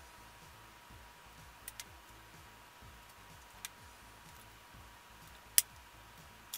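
A few sharp clicks and taps of a knife and shears against a plastic cutting board, scattered and separate, the loudest about five and a half seconds in.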